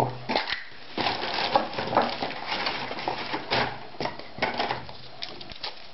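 Packaging being handled, with crackly rustling and irregular light clicks: a coiled phone charging cable in its plastic wrap turned over in the hands. The noise thins out near the end.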